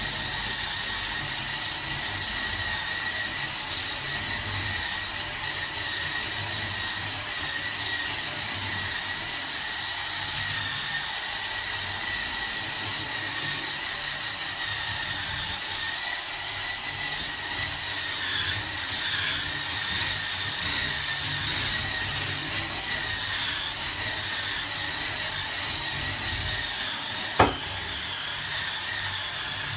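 Hurricane Spin Scrubber's motor running with a steady high whine while its spinning brush scrubs foamy shower glass, with one sharp knock near the end.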